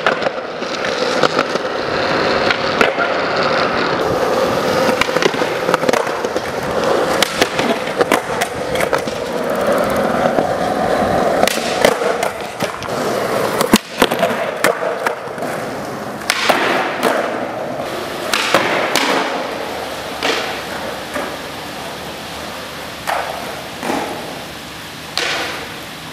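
Skateboard wheels rolling on a smooth concrete floor, broken by the pops, grinds and landing slaps of tricks on a concrete ledge. The hardest landing impact comes about 14 seconds in. Toward the end the rolling dies down and a few separate board clacks stand out.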